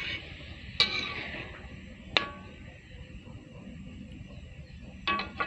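Metal spatula stirring a bubbling coconut-milk chilli sauce in a metal pan: two sharp ringing clinks of the spatula against the pan, about a second and a little over two seconds in, and a quick run of knocks near the end, over a steady bubbling hiss from the simmering sauce.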